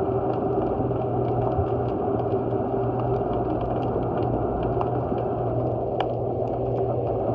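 Underwater sound beneath a wharf: a steady low mechanical hum with a constant tone, overlaid by many small, irregular sharp clicks.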